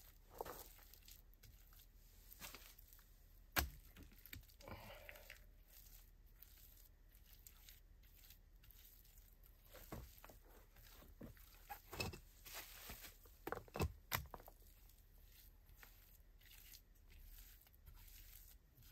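Faint, scattered knocks, scrapes and rustles of hands at work, with one sharp knock about three and a half seconds in and a cluster of knocks and scrapes later on.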